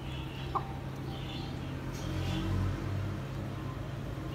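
Steady low engine hum that swells briefly about two and a half seconds in, like a vehicle nearby, with soft scratchy pecking of hens feeding from a bowl and one short sharp sound just over half a second in.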